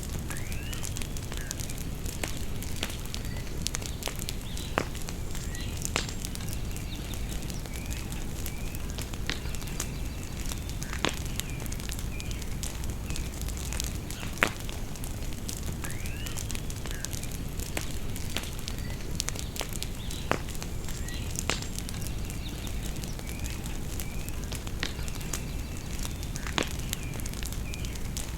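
Bonfire crackling, with sharp wood pops every few seconds over a steady low rumble. Songbirds chirp and sing in short repeated phrases.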